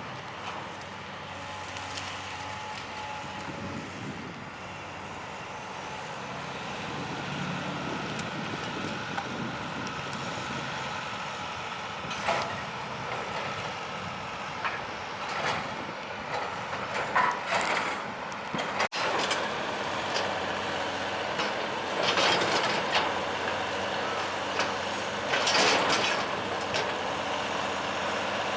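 Cat excavator's diesel engine running steadily while it demolishes a building. From about halfway through come repeated short bursts of crunching and scraping as debris is torn and breaks.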